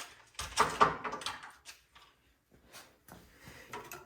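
A short scraping clatter about half a second in, like a drawer or box being worked in a small workshop, then fainter clicks of handling near the end.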